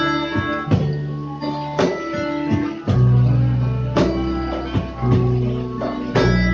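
Instrumental passage of a ballad: guitar strummed or plucked over a sustained bass, with chord changes about every second, no vocals.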